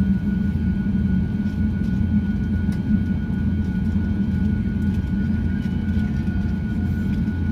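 Cabin noise aboard an Airbus A350-900: a steady low rumble from the engines and airflow, with a steady high whine over it.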